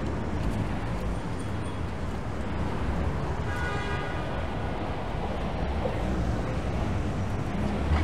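Steady city street traffic noise with a low rumble of passing vehicles, and a brief higher-pitched tone about three and a half seconds in.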